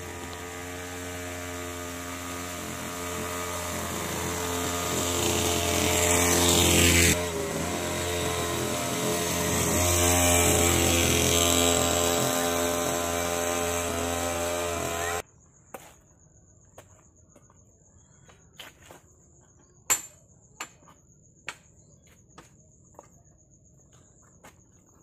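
Homemade mini bike's two-stroke chainsaw engine running under way. It grows louder as the bike approaches, and the pitch drops as it passes close by about seven seconds in. It runs on until it cuts off suddenly about fifteen seconds in, leaving a steady high insect trill and a few light clicks and taps.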